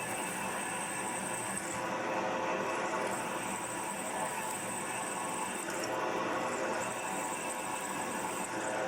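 A machine spindle running steadily while a twist drill, lubricated with white coolant, cuts a tap-drill hole in a welded steel part. There is a steady hum with a high whine that cuts out and returns a few times.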